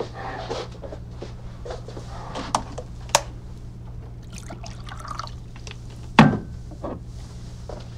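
Water poured into a glass, with small clinks of glass, and a louder glass knock with a short ring about six seconds in.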